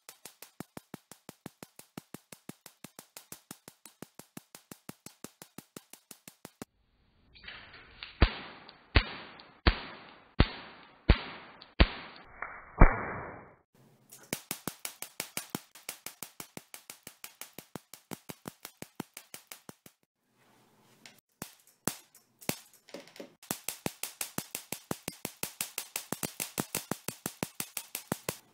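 Homemade Tesla coil driven by a flyback transformer, sparking in a rapid train of sharp snaps, a few per second. About a third of the way in come about seven much louder, slower cracks that ring on. Then the quicker snapping resumes, breaking off briefly twice.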